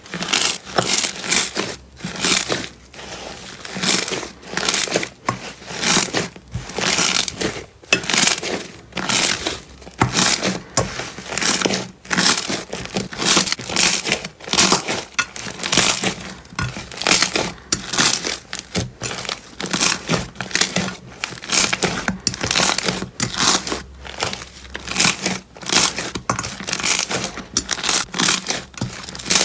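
Slime being squeezed and pressed by hand, crackling and crinkling in repeated bursts about once or twice a second.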